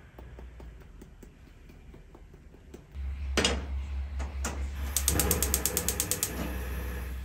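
A frying pan knocks once on a gas hob's grate, then the hob's igniter clicks rapidly, about ten clicks a second for over a second, as the burner lights and the gas flame rushes steadily.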